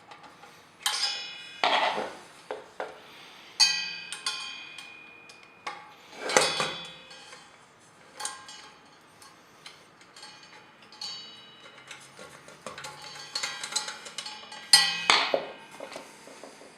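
Irregular clicks and clinks of exhaust-fan parts being handled, some leaving a brief metallic ring, with louder knocks near the start, in the middle and near the end.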